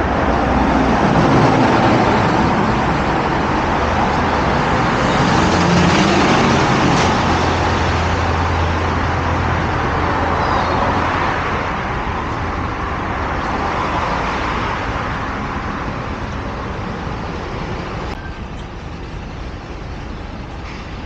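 Busy road traffic passing close by: cars, buses and trucks with engine rumble and tyre noise, heaviest in the first half and growing gradually quieter toward the end.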